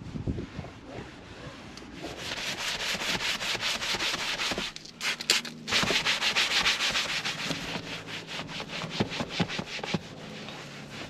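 A stiff brush scrubbing a surface in quick back-and-forth strokes, as in hand detailing, with a brief break about five seconds in.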